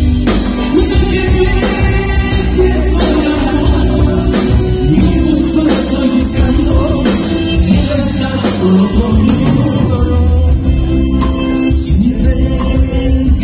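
A live band playing a romantic ballad through the hall's PA: drums, bass guitar, electric guitar and keyboard, with a male lead singer singing the melody.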